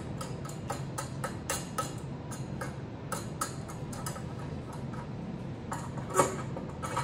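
Small metal clicks and taps, about three a second and uneven, from a wing nut being worked on a sluice leg bracket while an aluminium leg is fitted into it, with one louder clack about six seconds in. A steady low hum runs underneath.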